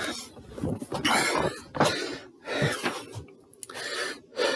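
A man coughing and breathing hard, several short noisy bursts about a second apart.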